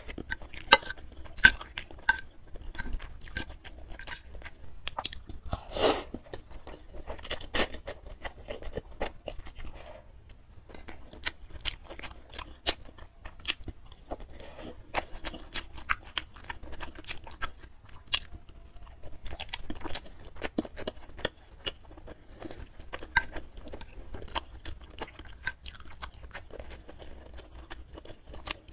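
Close-miked eating of spicy instant noodles and meatball soup: steady wet chewing and mouth clicks, with a couple of longer, louder mouth sounds about six and seven and a half seconds in.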